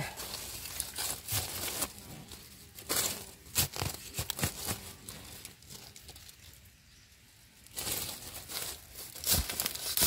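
Dry leaf litter and soil crackling and rustling in irregular bursts, with scattered sharp clicks, as mushrooms are dug out with a small hand trowel and picked by gloved hands. It goes quieter for a couple of seconds past the middle, then the rustling picks up again.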